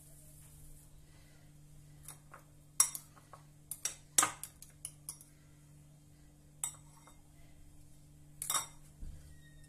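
Metal fork clinking against a bowl as a dough ball is rolled in beaten egg white and lifted out: a run of sharp clinks from about three to five seconds in, one more near seven seconds and a last few near eight and a half.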